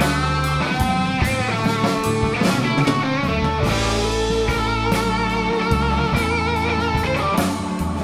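Live blues band playing an instrumental passage: a Les Paul-style electric guitar through a Divided By 13 RPB 19/37 amp leads with held, wavering notes over a drum kit, bass and keyboard.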